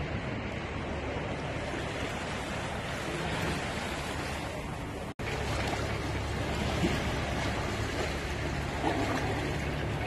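Small sea waves lapping and washing onto a sandy beach, a steady rush of surf. The sound cuts out for an instant about five seconds in.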